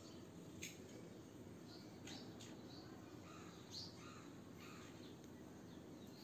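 Faint close-up sounds of fingers working through hair: a few soft, scattered clicks and rustles as fingernails pull lice and nits down individual strands, over a low steady hiss.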